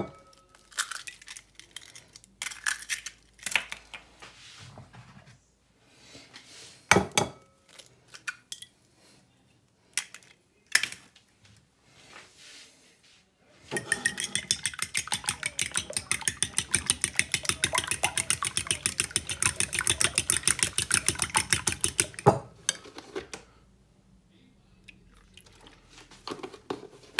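Eggs knocked against the rim of a ceramic bowl and cracked, a few separate sharp knocks. Then a metal fork beats the eggs in the bowl: rapid, even clinking, several strokes a second, for about eight seconds before it stops.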